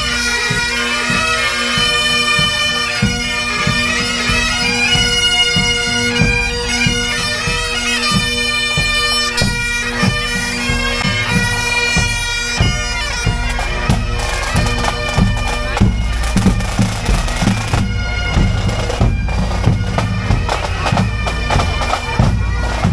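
Pipe band playing: bagpipes with a steady drone under the melody, and drums beating time. About halfway through the pipes fade back and the drums carry on.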